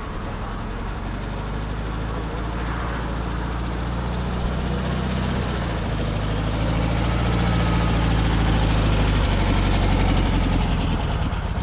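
1965 VW Beetle's air-cooled flat-four engine running, getting steadily louder over most of the stretch and easing off slightly near the end. The engine is still a little cold.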